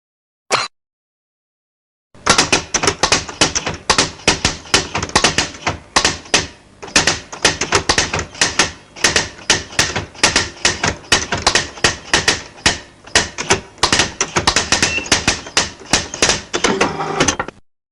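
Cartoon sound effect of rapid, irregular clicking and clacking, several sharp strikes a second, starting about two seconds in and stopping just before the end, after a brief short sound about half a second in.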